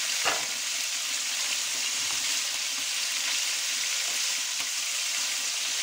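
Pieces of salt cod frying in extra virgin olive oil in a pan, giving a steady sizzle, with one short click about a third of a second in.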